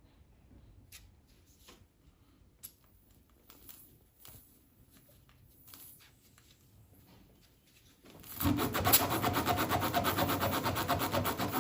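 Faint clicks and rubs of hand tools on a tire, then from about eight seconds in a loud, fast, rhythmic rasping as a spiral reamer is worked in and out of the puncture in the tire rubber.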